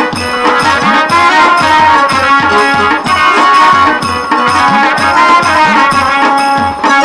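Traditional Bengali jatra music: a melody on a reedy wind instrument over a fast, steady drumbeat whose low strokes slide down in pitch.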